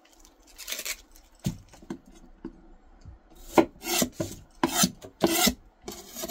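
Onion being peeled by hand and cut with a chef's knife on a cutting board: a series of short raspy scraping strokes of dry onion skin and blade, bunched close together in the second half, with a single knock on the board about one and a half seconds in.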